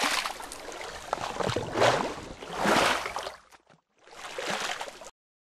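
Splashing, gurgling liquid sound effects for an animated logo intro, coming in swells with a brief gap near the end, then cutting off suddenly.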